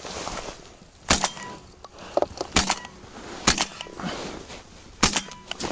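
Shotgun fired four times in quick succession, the shots about one to one and a half seconds apart, with smaller clicks between them.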